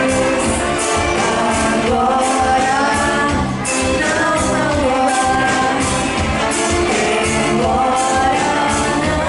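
Big band of saxophones, trumpets, trombones, guitar, bass, drums, percussion and keyboards playing a pop-rock song live over a steady drum beat.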